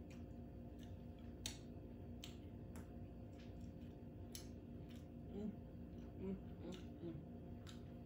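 Faint mouth sounds of someone eating seafood and fufu by hand: scattered wet clicks and smacks from chewing and finger-licking. A steady low hum runs underneath, and there are a few brief low hums from the eater around the middle.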